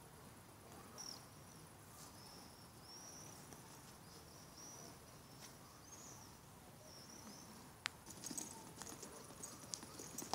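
Faint high chirps repeating about once a second, then, from about eight seconds in, a foal's hooves knocking and scuffing on the sand as it breaks into a run.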